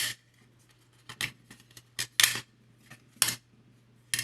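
16-gauge steel wire rail being pried and pulled out of the grooves of a 3D-printed plastic bending form. It gives about seven short, sharp metallic clicks and scrapes at irregular intervals.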